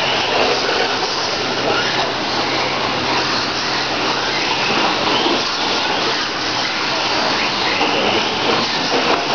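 Electric radio-controlled off-road cars running on an indoor dirt track: a steady whirring noise of motors and tyres, with faint wavering motor whines in it.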